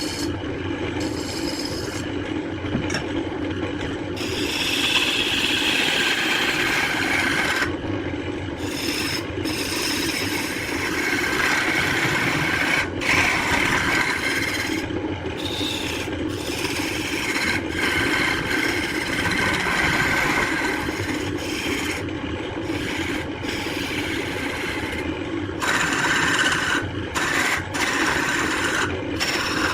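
A power tool working wood: a steady motor hum under a rasping, scraping noise of wood being cut or abraded, which eases off briefly several times and then resumes.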